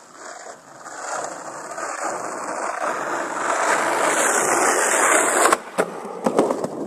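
Skateboard wheels rolling, growing louder for about five seconds as the board approaches. Then, about five and a half seconds in, a few sharp knocks of the board on wood and the ground.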